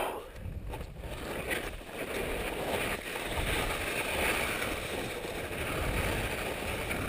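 Skis sliding and turning down a steep snow slope, a steady noise of snow scraping under the bases mixed with wind on the microphone, slowly growing louder.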